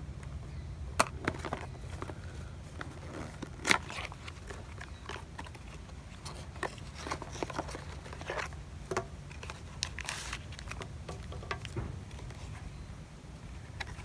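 Cardboard packaging being handled: a sleeve slid off a box and an inner cardboard box opened, giving scattered taps, scrapes and rustles, with two sharp clicks in the first four seconds, over a steady low hum.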